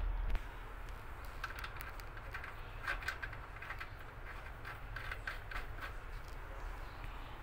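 Metal threads of a steel pipe nipple clicking and scraping in a run of small ticks as it is screwed by hand into a galvanized tee fitting, over a low rumble.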